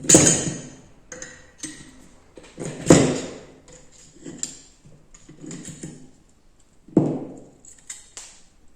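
Irregular metallic knocks and clatter of tools and parts being handled while stripping a spring-piston air rifle, with three louder strikes that ring briefly: one at the start, one about three seconds in and one about seven seconds in.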